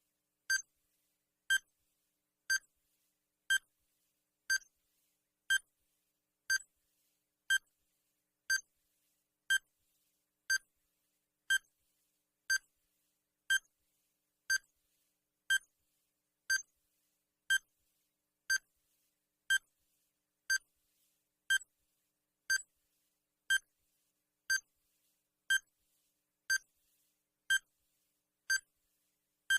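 Countdown timer sound effect: a short, high electronic beep once every second, evenly spaced like a clock tick.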